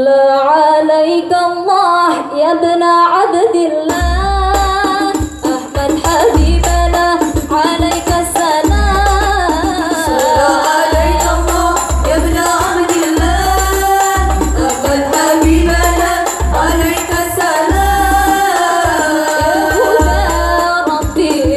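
Islamic devotional sholawat singing with a hadrah ensemble of rebana frame drums. A single melodic voice sings unaccompanied for about four seconds, then the drums come in with a steady deep beat under the singing.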